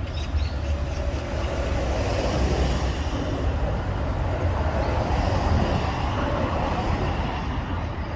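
A powerful vacuum machine running steadily, with a deep low rumble under a broad rushing noise.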